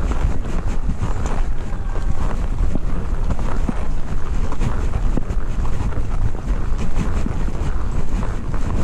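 Strong wind buffeting the microphone: a loud, steady rumble with irregular small knocks and rustles running through it.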